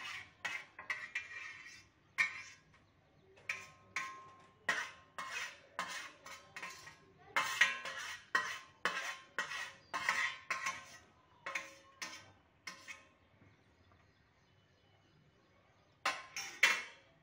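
A metal spoon clinking and scraping against the lid of a pressure cooker, knocking the froth stuck to the lid back into the pot. It is a quick, irregular run of sharp clinks with a slight ring that stops about thirteen seconds in, then a few more clinks near the end.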